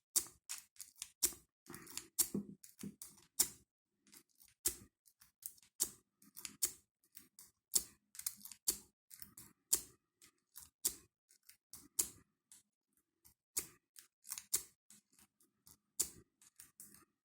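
Lock pick being zipped and raked through the keyway of an ASSA Ruko padlock's 5-pin cylinder, with tension on it: a run of sharp, irregular metal clicks and light scrapes as the pick snaps across the pins.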